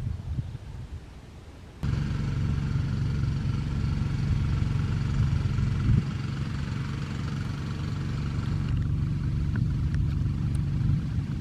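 An engine running steadily at an even speed. It starts abruptly about two seconds in.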